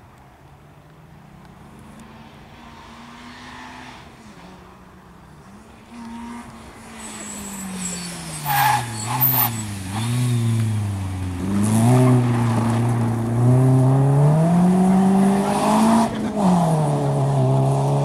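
Rally car approaching at speed, growing louder from about six seconds in. The engine note falls as it slows, then climbs again through the gears, dropping sharply at each upshift. Two brief sharp noises come out about nine seconds in.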